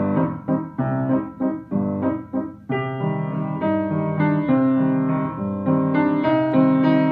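Background keyboard music: short, evenly spaced piano-like chords, moving to longer held notes about three seconds in.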